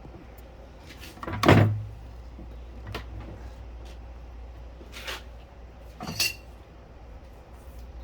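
Handling noises as a circular saw is set up and plugged in: one heavy thump about a second and a half in, then a few lighter knocks and clicks. The saw's motor is not running.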